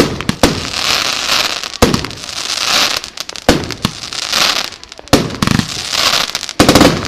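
Röder "Let's fetz!" firework battery firing: six sharp reports about every one to one and a half seconds, each followed by about a second of hissing crackle as the bursts break into glittering stars.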